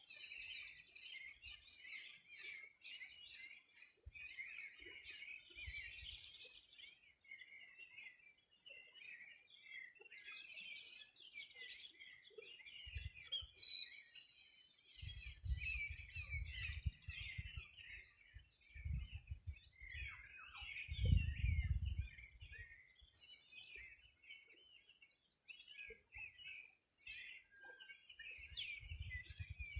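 A dawn chorus of several songbirds chirping and singing over one another without a break. Low rumbles come and go, the strongest a little past the two-thirds point.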